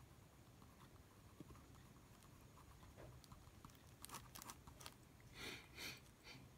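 Faint scratching of a pen on paper as a heading is written and then underlined, against near-silent room tone; the clearest strokes come near the end.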